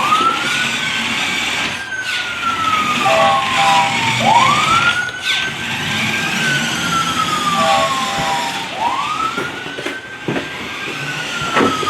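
Electronic siren of a toy fire truck, wailing in repeated cycles. Each cycle rises quickly, holds, then falls slowly, about every four and a half seconds, with short beeping tones between them and a steady hiss underneath.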